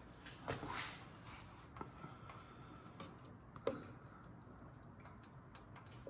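A screwdriver prying a brake pad back against a Ford Ranger's dual-piston front caliper to slowly collapse the top piston. The sound is a few quiet metal scrapes and clicks, with a brief scrape about half a second in and a sharp click a little past halfway.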